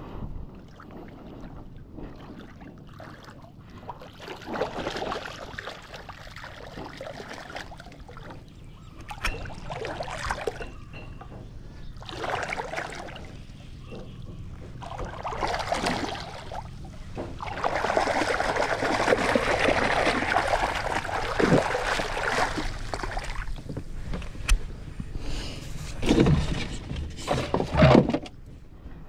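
Shallow water sloshing and splashing in irregular bursts as a small boat is pushed off the mud by someone wading beside it, with a longer spell of splashing about two-thirds of the way through and a few sharp knocks near the end.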